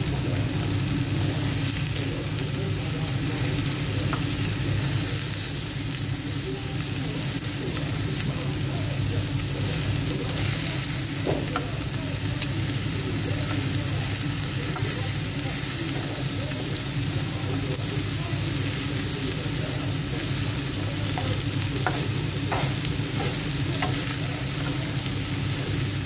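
Chicken strips and sliced red onion sizzling steadily in a hot griddle pan, with a steady low hum underneath and a few faint ticks.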